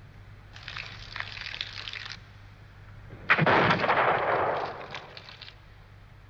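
A single shot from a flintlock long rifle about three seconds in: a sudden sharp report followed by a booming tail that dies away over about a second and a half. A quieter hissing noise comes before it.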